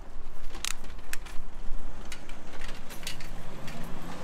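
Bicycle rolling over brick paving, its parts rattling and clicking sharply every second or so over a steady low rumble. Near the end a motor vehicle's engine rises in pitch.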